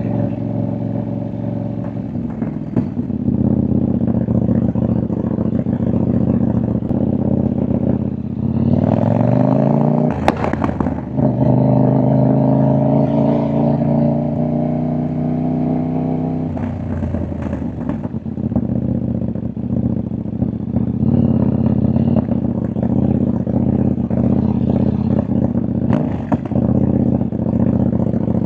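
CFMoto 800NK's parallel-twin engine and exhaust under way. It runs steadily, then rises in pitch under acceleration about nine seconds in and holds there, with a sharp crack as it picks up. Around sixteen seconds it eases off and drops back, and it pops and crackles on the overrun, with another loud pop near the end.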